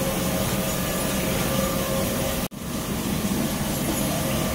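Oil mill machinery running with a steady hum and whir, breaking off for an instant about halfway through and then carrying on the same.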